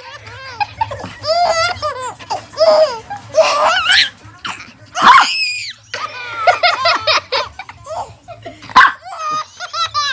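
A baby laughing in repeated bursts of giggles and belly laughs.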